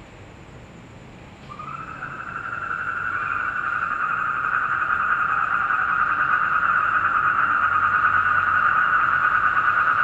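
Black-spectacled toads (Asian common toads) trilling: a steady, pulsed trill starts about a second and a half in and swells over the next few seconds until it is loud and sustained.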